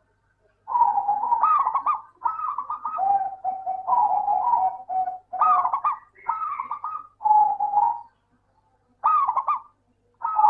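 Zebra dove (perkutut) singing: phrases of rapid, rolling cooing notes, one after another, then a pause of about a second before it starts up again near the end.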